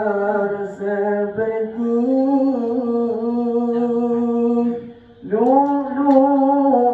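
A man singing a mawlid chant in praise of the Prophet into a microphone, holding long, slowly ornamented notes. About five seconds in, the voice breaks off briefly, then comes back on a new phrase.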